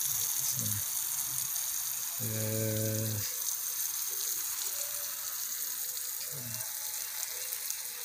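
Garden hose spraying water onto leafy plants: a steady hiss of falling spray.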